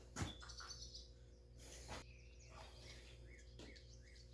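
Near silence with a faint steady hum, a small click about a quarter second in, and a bird chirping softly five or six times in the background during the second half.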